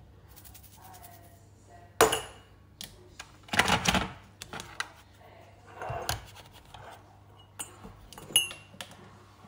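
Spring-handled metal mesh tea infuser being handled over a ceramic mug: a sharp click about two seconds in, a scraping rustle around four seconds, and a few small clinks of metal against the mug near the end.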